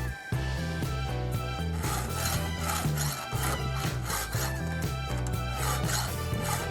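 Round file rasping across a chainsaw chain's cutter teeth in repeated hand strokes, two or three a second, as the dull chain is sharpened. Background music plays throughout.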